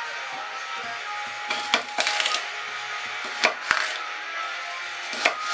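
Chef's knife cutting a celery stick lengthwise into strips on a wooden chopping board: about five separate cuts, each ending in a sharp knock of the blade on the wood.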